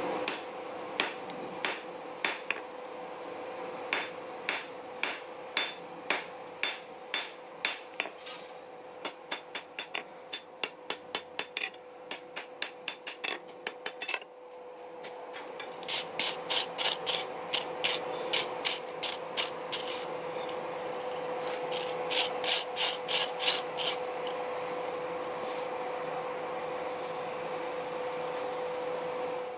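Hand hammer striking steel on an anvil in runs of quick blows, with a short pause midway and louder, faster runs in the second half. A steady hum lies underneath.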